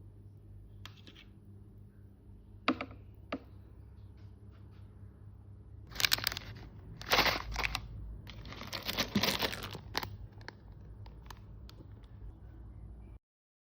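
Handling noises over a low steady hum: a few sharp clicks, then two spells of crinkling and rustling about six and nine seconds in, followed by more scattered clicks.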